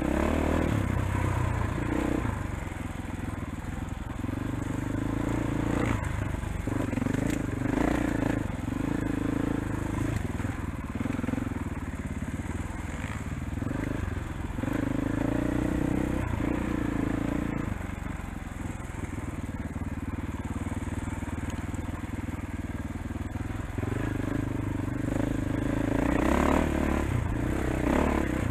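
KTM 500 single-cylinder four-stroke dirt bike engine under changing throttle on rough single track, its pitch stepping up and down every few seconds as the rider rolls on and off. Crunching and clatter from the tyres and bike over rocks and roots come through with it.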